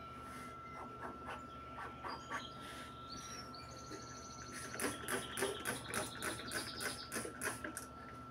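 A bird chirping in runs of short high notes that come faster and louder about five seconds in, over a faint steady high-pitched whine.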